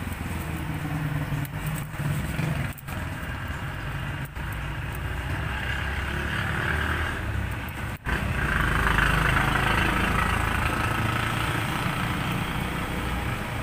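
Steady rumble of a running engine, with a hiss that swells a little after halfway and short breaks in the sound a few times.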